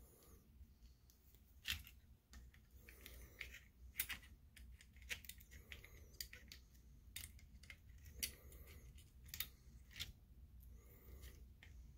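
Faint, irregular clicks and ticks of pliers and a replacement MOSFET being worked into a projector ballast circuit board, metal and plastic tapping against the board.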